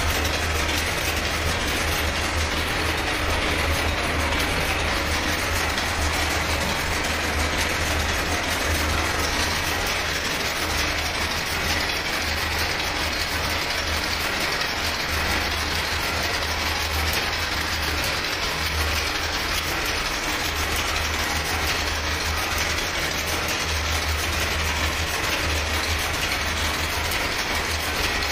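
Silk handloom weaving a Paithani saree: steady mechanical clattering and rattling of the loom's wooden beater and jacquard mechanism, with no pause.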